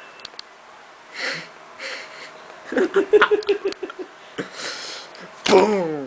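A man's voice laughing in breathy, wheezing bursts, with a quick run of short voiced laughs about three seconds in and a falling voiced sound near the end. This is acted laughter.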